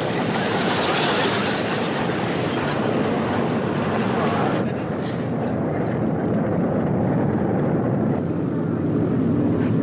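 Engines running steadily with a rushing hiss. About halfway through, the upper hiss drops away, leaving a lower drone.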